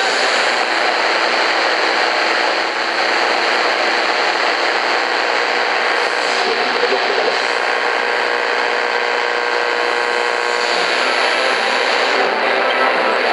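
Steady static hiss from an Eton FR250 shortwave radio's speaker as the analog dial is turned between stations, with no clear station coming through.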